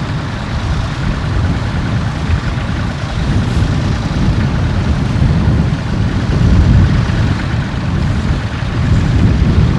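Tractor engine running, a low rumble that swells slightly past the middle.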